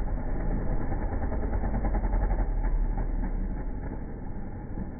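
Motocross bike engines running during freestyle jumps, a steady engine rumble that swells briefly and eases off near the end.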